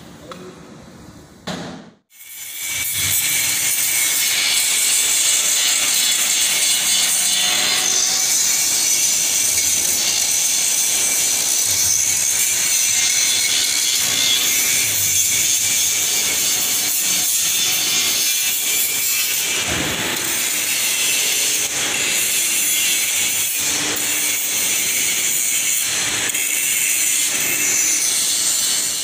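Electric arc welding on the seams of a steel tank: a loud, steady hiss from the arc that starts about two seconds in, after a brief silence.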